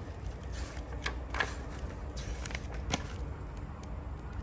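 Pages of a paper instruction booklet being leafed through by hand: a few short rustles and light paper clicks.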